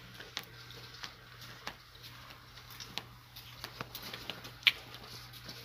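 Scattered ticks and taps of a steel plate and chopped greens being handled over an aluminium cooking pot, with one sharp clink about three-quarters of the way through.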